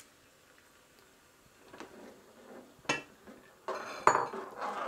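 Metal spoon clinking and scraping against a steel pot while stirring pasta in boiling water: one sharp clink about three seconds in, then a run of knocks and scraping near the end.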